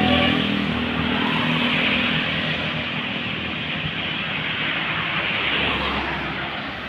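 The telolet horn's pitched notes die away at the start, leaving a tour bus's engine and road noise as it drives past. The sound slowly fades as the bus moves away.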